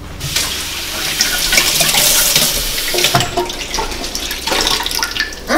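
Kitchen faucet running, the water splashing over a bunch of fresh parsley rinsed by hand in the sink. It eases off shortly before the end.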